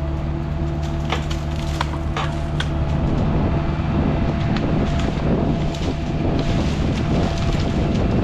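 Excavator engine running steadily under load, with a thin steady whine above it, while brush snaps and crackles as it is grabbed and crushed; a few sharp snaps come in the first few seconds, then the crackling thickens from about three seconds in.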